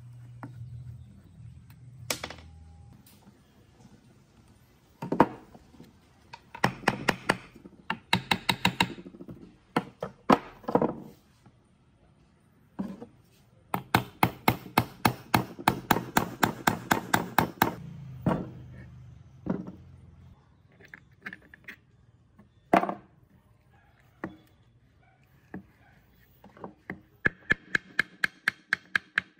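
Bursts of rapid tapping and knocking from hand tools working on an old worm-drive circular saw, about seven strikes a second. The longest run lasts about three and a half seconds in the middle, and single sharper knocks come about two seconds in and again near the end.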